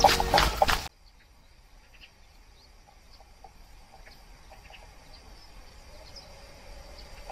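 Music with a steady beat cuts off about a second in. Then comes quiet open-air ambience with faint, scattered bird chirps, slowly growing louder toward the end.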